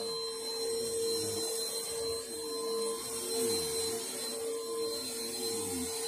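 Bissell Helix Power Force upright vacuum cleaner running on carpet: a steady motor whine, with a lower tone under it that wavers up and down.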